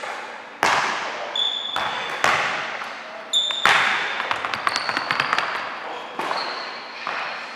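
Basketball bouncing on a hardwood gym floor: several sharp, echoing bounces, with short high-pitched sneaker squeaks on the court in between.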